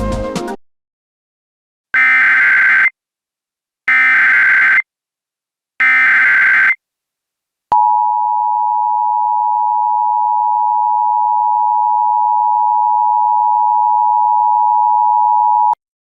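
Emergency Alert System header: three bursts of digital data tones, about one second each and two seconds apart. Then the two-tone EAS attention signal, held steady for about eight seconds and cut off sharply.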